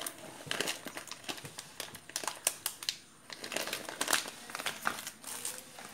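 A plastic packet crinkling as it is handled, with rapid, irregular crackles.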